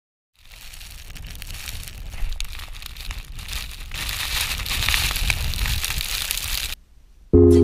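Snow hissing and crackling during a descent of a powdery slope, with flying snow and wind buffeting the microphone. It grows louder through the run and cuts off near the end.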